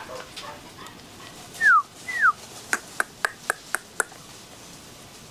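A person whistling two short falling notes, then making six quick kissing clicks at about four a second: calling a puppy to get its attention.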